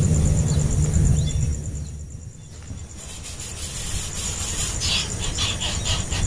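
Outdoor field sound: wind rumble on the microphone for the first second and a half, under a steady fast-pulsing high insect trill, with a few short rising chirps early on and a series of short rasping high sounds from about three seconds in.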